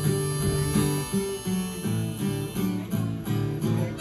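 Acoustic guitar strumming chords, played live for the wedding processional.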